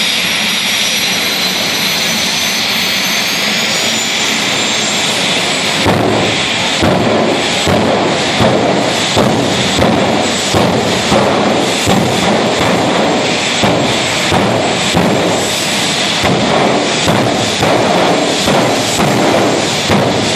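Jet dragster's turbojet engine running on the start line: a high whine rising in pitch over the first few seconds, then, about six seconds in, a louder, ragged rumble that pulses unevenly, typical of the afterburner being lit while the car is held in place.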